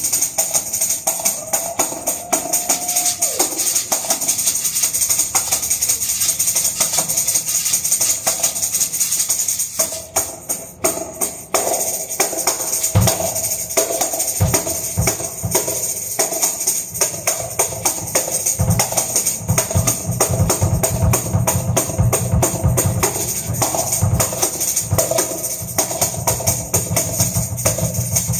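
Live free-improvised jazz from a small group: a steady high metallic jingling runs throughout, with bass drum and tom hits coming in about halfway and growing busier toward the end.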